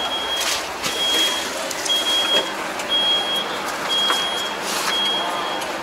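Electronic warning beeper giving a steady high beep about once a second, each beep lasting most of the second, over steady background noise with a few light clicks.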